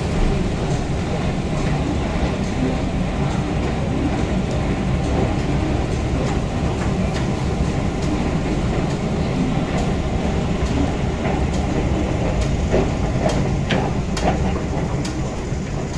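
Steady low rumble of an underground metro station, heard while riding a long escalator down to the platform. Scattered clicks and footsteps come in during the last few seconds, as the escalator ends.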